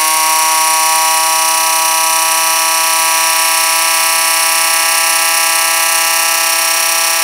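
24-volt DC oil transfer pump's electric motor running steadily with a loud, even whine, the pump turning dry with no hoses fitted.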